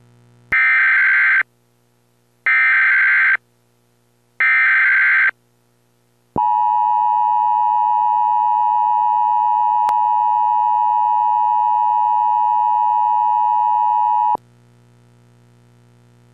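Emergency Alert System header and attention signal: three bursts of SAME digital header data, each about a second long, then a steady alert tone held for about eight seconds. Together they announce an incoming severe thunderstorm warning.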